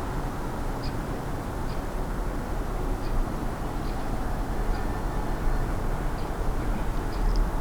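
Steady outdoor background rumble, with faint short high chirps about once a second.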